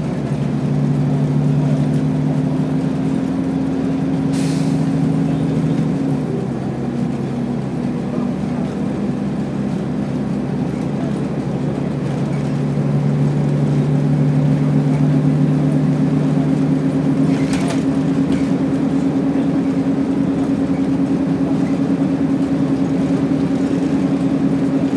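Motor vehicle running along at steady speed: a continuous engine hum with road noise, its note changing about six seconds in and then holding steady.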